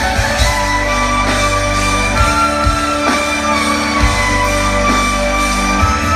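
Live amplified band music heard from within the crowd: sustained melody lines over a band, with drum hits every second or so.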